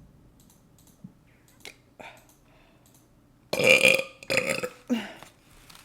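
A person's loud burp about three and a half seconds in, trailing off in a couple of shorter sounds, after a quiet stretch with a few faint clicks.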